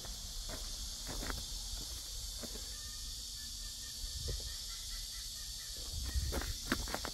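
Outdoor background: a steady high hiss over a low rumble of wind on the microphone, with scattered light clicks and knocks from handling and footsteps, the loudest a few knocks about six to seven seconds in.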